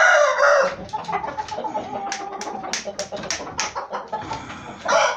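Aseel (Indian game) roosters calling in a coop: a short pitched call at the start, then a string of sharp taps and scuffs, and a rooster starting to crow near the end.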